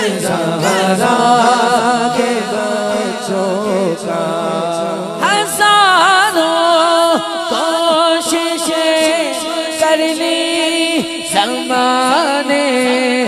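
A male voice singing an unaccompanied Urdu naat into a microphone, drawing out long melismatic phrases with a wavering, ornamented pitch. A steady low drone is held beneath the voice.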